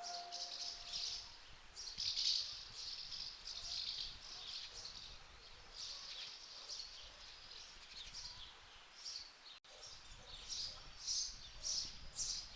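Small birds chirping and calling, thin and high, with a quicker run of short chirps at about two a second near the end.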